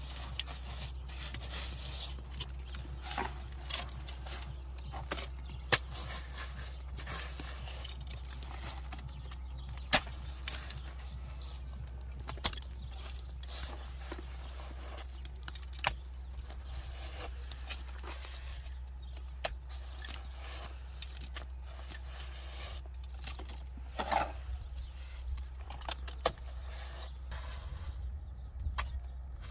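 Hand-plastering: wet plaster scooped from a metal pan with a gloved hand and pressed onto the top of a wall, heard as sharp knocks and scrapes every few seconds over a steady low rumble.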